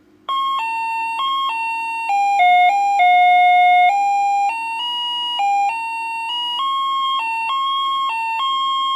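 1980s Maplin electronic doorbell, a simple chip driving a small quarter-watt 8-ohm speaker, playing one of its loud monophonic melodies: a run of single electronic notes stepping up and down in pitch, some short and some held about a second, starting about a quarter second in.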